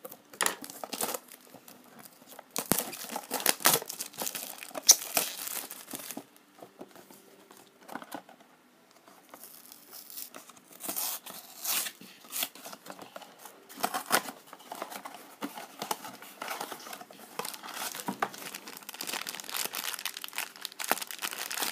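Cardboard blind box being pried open and its flaps torn, then the foil bag from inside crinkled in the hands: an irregular run of scrapes, tears and crackles, with a short lull partway through.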